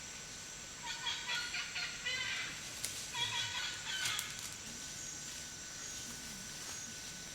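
Bird calls: two bursts of rapid repeated notes, about a second in and again around three seconds in.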